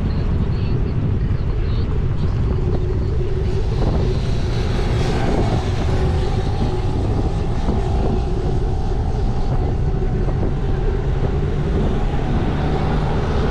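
Wind rumbling over a bicycle-mounted GoPro's microphone while riding, steady and loud. A car passing on the road alongside adds an engine drone through the middle.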